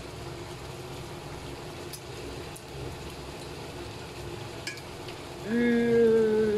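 Chicken adobo frying in oil in the pan, a low steady sizzle with a few faint clicks. About five seconds in comes a long hummed "mmm" from the cook as she tastes it, the loudest sound, falling slightly in pitch.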